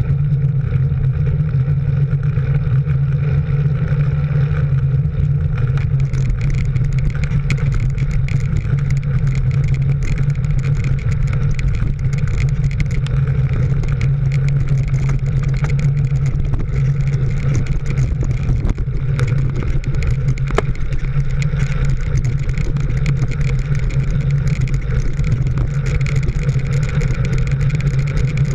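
Steady drone of a vehicle engine running at an even cruising speed, with road and wind noise.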